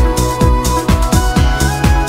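Electronic dance music with a steady kick drum, about two beats a second, under held synth notes.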